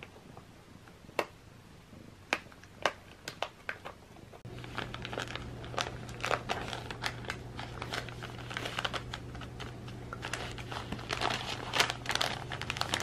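A few sharp separate clicks, then from about four seconds in a cat pawing and rolling on a crinkly gift package, making continuous crinkling and crackling over a low steady hum.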